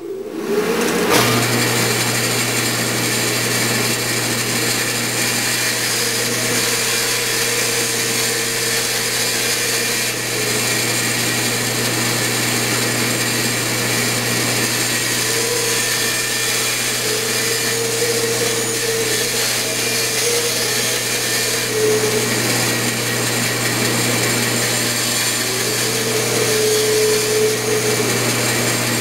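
Bandsaw starting about a second in and then running steadily, its blade cutting through a small wooden handle blank in several stretches to rough out the shape.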